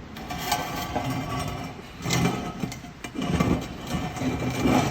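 Handling of cut metal stock: irregular knocks and scraping with a light metallic ring, several times, loudest near the end.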